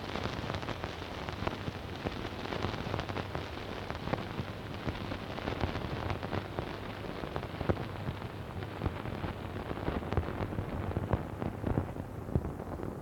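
Surface crackle and hiss of a stylus running in the lead-in groove of an 8-inch Eclipse 78 rpm record on a Bush record player: a steady hiss thick with small clicks and pops. Near the end the treble fades, leaving a duller crackle.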